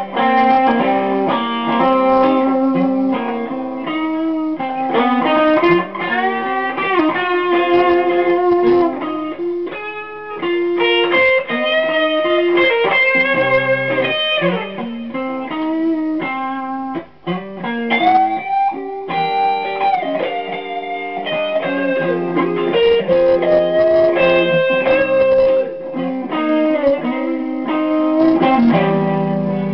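Telecaster-style electric guitar playing a blues lead: single-note phrases with string bends that slide the pitch up.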